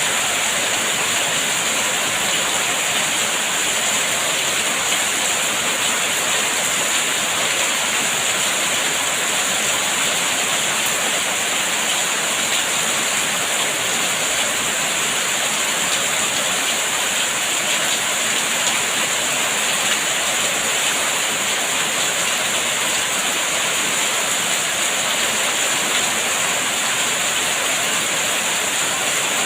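Steady, even rain falling, a constant hiss with no breaks or distinct drops standing out.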